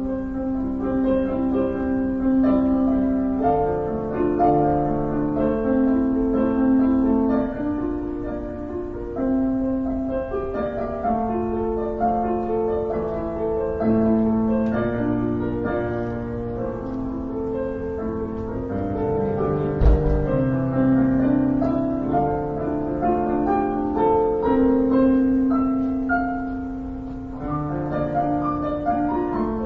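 Piano played slowly, with held notes over a lower line. There is a single thump about two-thirds of the way through.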